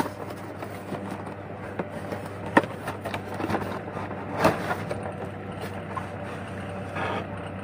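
Cardboard product box being handled and opened: a few scattered taps, scrapes and rustles of the cardboard and packaging over a steady low hum.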